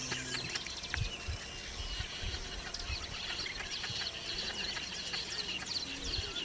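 Village weaver colony chattering: many short, high calls overlapping continuously, with a few faint low thumps.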